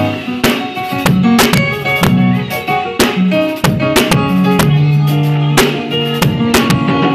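Electronic keyboard played with both hands: full chords and a moving bass line, with sharp drum hits punctuating the music.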